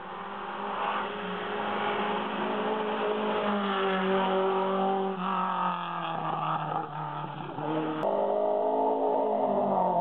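Racing car engines under hard acceleration, revving up and dropping back with gear changes as cars climb past. It gets louder toward the end as a Lancia Fulvia coupé passes close.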